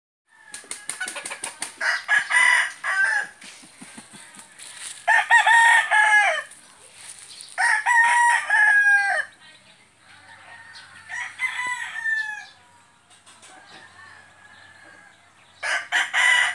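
Roosters crowing about five times in a row, one crow fainter than the rest, with a rapid patter of short clicks at the start.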